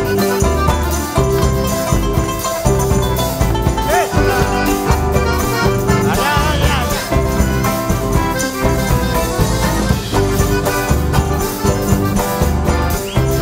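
Upbeat Latin American folk-style music with a steady beat and several instruments playing.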